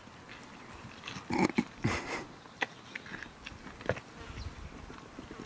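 Rams crunching and chewing raw vegetables and apple, with several sharp crunches, and a brief insect buzz about a second and a half in.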